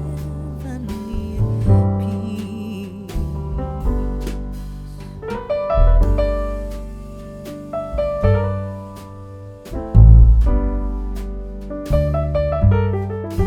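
Background music: an instrumental piece led by piano, with notes struck over a bass line and left to fade.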